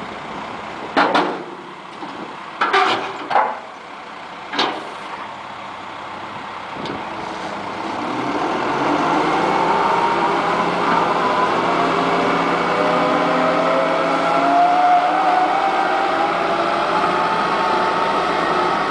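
John Deere 160 excavator's diesel engine running, with several sharp metallic clanks in the first five seconds. From about eight seconds in the engine and hydraulics grow louder, with a whine that slowly rises and shifts in pitch, as when the machine works under load.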